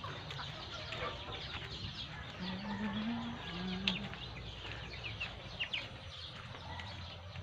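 Backyard chickens clucking, with many short high chirps scattered throughout.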